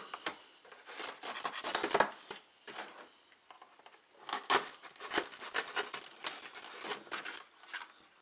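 Cardboard rubbing and scraping as a small boxed figure is worked free from a tight cardboard packing insert and pulled out. It comes as a string of short, irregular scrapes with a lull around the middle.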